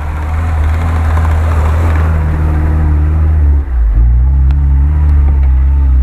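Lada Niva engine running steadily under load as the car drives through snow. The low engine note drops out briefly about three and a half seconds in, then carries on as before.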